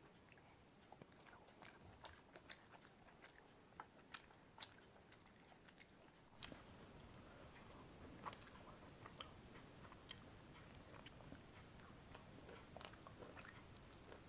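A person eating: faint chewing with scattered small mouth clicks and smacks, two sharper ones about four seconds in. A faint background hiss rises a little about six seconds in.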